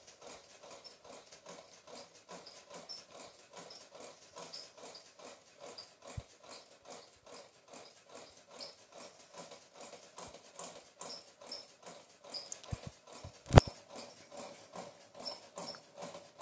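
Hand mixing crumbly wheat-flour dough in a glass bowl: a steady rhythm of soft squishing and pressing strokes, with one sharp knock about thirteen seconds in.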